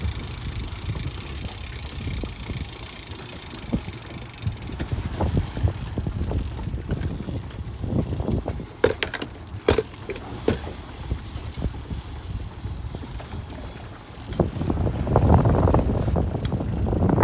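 Irregular clicking and rattling, typical of a fishing reel's ratchet as line is worked, over a steady low rumble of wind and boat. The rumble grows louder near the end.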